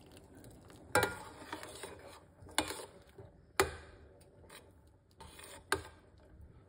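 Metal spoon clinking and scraping against a stainless steel saucepan while stirring a pot of hot tea. There are four sharp clinks spread over several seconds, with lighter scrapes and ticks between them.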